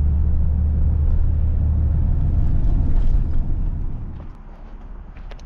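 Vehicle engine and road noise heard from inside the cabin, a steady low drone that drops away sharply about four seconds in.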